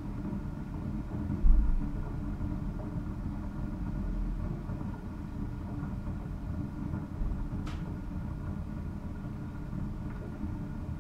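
Vintage East German Kaffee Boy K500 drip coffee machine heating its water towards the boil: a steady low rumble with a faint hum, one low thump about a second and a half in, and a light click near the eight-second mark.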